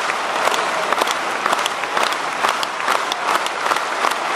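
Large stadium crowd clapping, with claps landing together in a steady rhythm about twice a second over a dense clapping din: the rhythmic handclap a crowd gives a jumper before her attempt.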